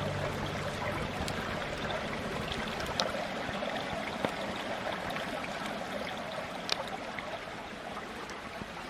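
Campfire burning with a steady hiss and a few sharp, scattered crackles and pops.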